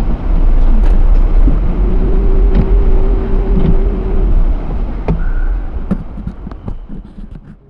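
Low, steady rumble inside a car's cabin with the engine running, with a steady hum for a couple of seconds in the middle and a few faint clicks. It fades out near the end.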